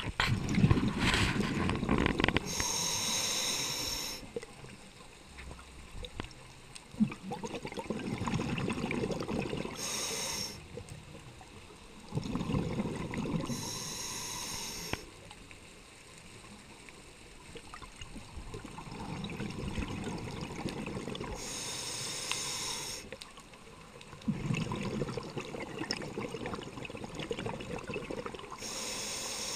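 Scuba diver breathing through a regulator, recorded underwater: five breath cycles, each a low bubbling rumble of exhaled air followed by a short hiss of the regulator as the diver inhales, with quieter stretches between.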